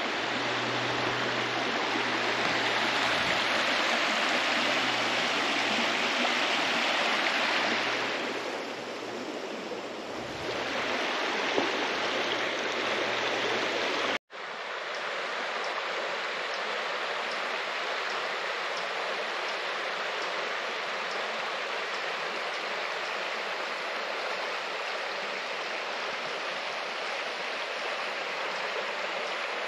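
A stream running steadily, a broad, even rush of water at a trail crossing. The sound breaks off for an instant about halfway through and comes back a little quieter.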